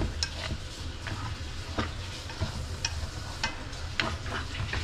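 Bok choy and carrots sizzling as they are stir-fried in an aluminium wok, turned with long chopsticks that click against the pan now and then, over a steady low hum.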